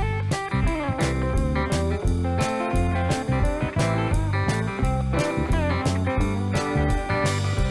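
Background music: guitar-led instrumental with a bluesy feel over a steady beat.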